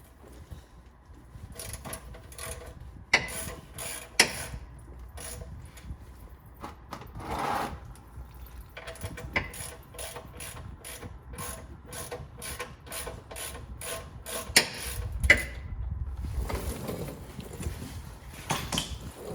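Ratchet wrench clicking in short rapid runs, mixed with metallic knocks and clanks of tools, as the engine's oil drain plug is worked loose.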